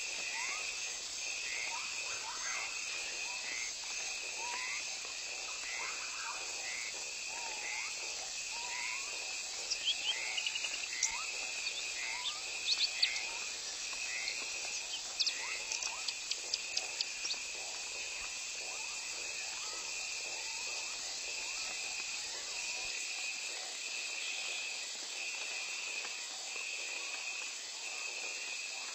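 Forest insect chorus: a steady high buzzing, with an insect call pulsing about once a second throughout. Short bird chirps come and go around the middle.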